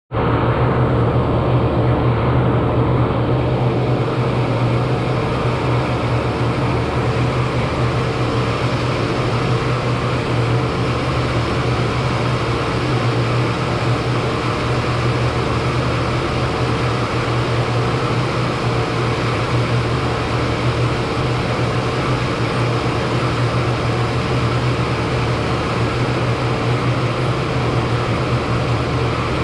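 40-ton Trane HVAC unit running: a steady low hum over an even hiss.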